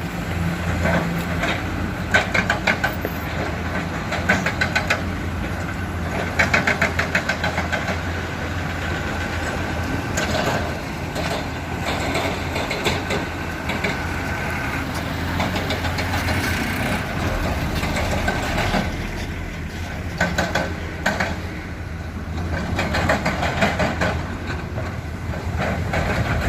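Komatsu hydraulic excavator's diesel engine running steadily, with repeated short bursts of rattling clatter as it digs and loads waste rock.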